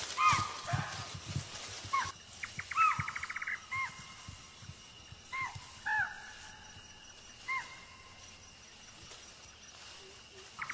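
Chital (spotted deer) alarm calls: short, sharp barks, each a quick rise and fall, repeated every second or two. A faint steady high insect-like tone runs underneath, and a quick rattling run of clicks comes about three seconds in.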